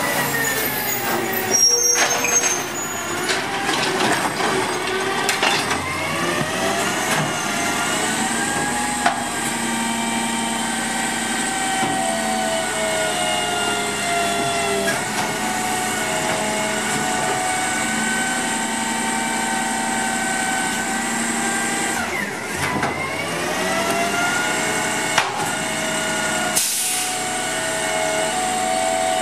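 Automated side-loader garbage truck: a short air-brake hiss about two seconds in as it stops, then its engine rising and falling in long swells as it drives the hydraulic arm, with a few short knocks in the last third as a recycling cart is emptied into the hopper.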